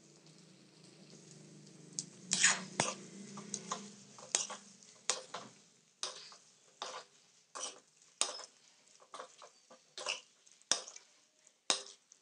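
A metal spoon stirring potato and tomato sabzi in an iron kadhai, scraping and knocking against the pan about once a second.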